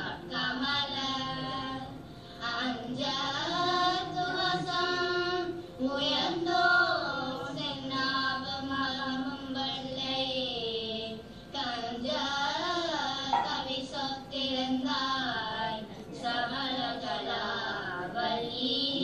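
A group of girls singing a Tamil devotional hymn together in unison, holding and bending long melodic notes with brief pauses for breath.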